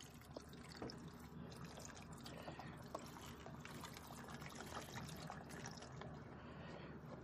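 Faint trickle of water leaking out of the opened fitting of a 30-gallon water ballast bladder, with a few small clicks from the hose and fitting being handled.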